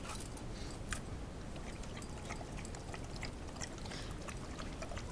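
A pit bull drinking from a bucket of water: irregular wet splashes and lapping clicks over a steady hiss.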